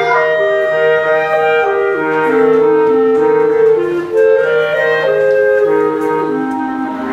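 A clarinet quartet playing in harmony: sustained melody lines moving by step over a low part that repeats a short note about every half second.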